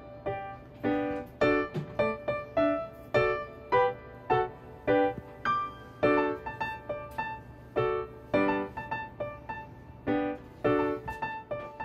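Background piano music: a melody of short, separate notes, a couple every second.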